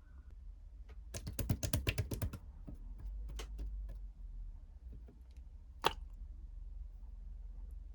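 A quick run of sharp clicks or taps about a second in, then a few single clicks, the sharpest near the end, over a low steady hum.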